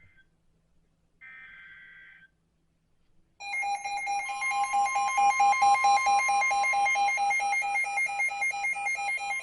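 A NOAA Weather Radio SAME header burst, a brief buzzy warble about a second in. From about three and a half seconds a receiver's alert alarm beeps rapidly, about five beeps a second, and about a second later the steady 1050 Hz warning alarm tone joins it. Together they signal an incoming warning.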